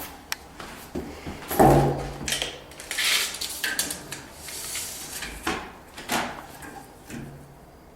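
Knocks, clicks and scraping from handling a window sill and measuring tools, with a louder knock about one and a half seconds in and a stretch of sliding noise near the middle.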